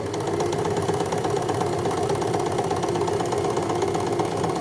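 Empisal Dressmaker 270D electric sewing machine running steadily at speed, with a constant motor hum and a rapid needle clatter. It is sewing decorative stitch N at a very short stitch length of 0.5, which packs the stitches close together.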